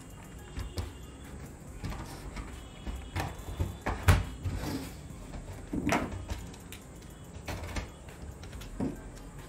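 Plastic clicks and knocks as a portable DVD player's casing is pried apart and its two halves are turned over and set down, with the sharpest knock about four seconds in and a second cluster of knocks about two seconds later.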